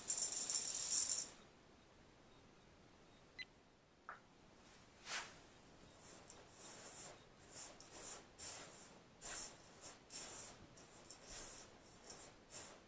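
Rolled oats poured from a plastic scoop into a stainless steel mixing bowl: a loud rattling hiss that stops about a second and a half in. After a short pause, a silicone spatula stirs the dry ingredients in the bowl, making a run of short scraping swishes about two a second.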